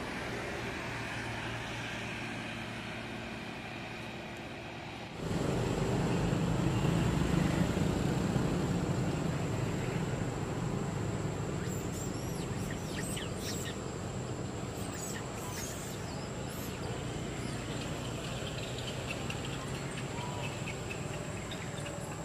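Outdoor background noise: a steady low rumble that jumps louder about five seconds in and stays, with a thin steady high tone from then on. Short chirping calls come through in the middle and again near the end.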